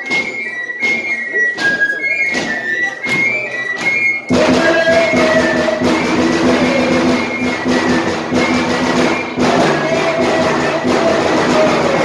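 Romanian folk music for a bear dance: large drums beating a steady rhythm under a shrill flute melody. About four seconds in the music gets suddenly louder and fuller, with sustained lower tones joining the drumbeat.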